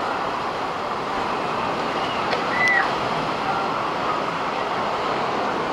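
Steady rushing of wind and ocean surf, with a brief high chirp about two and a half seconds in.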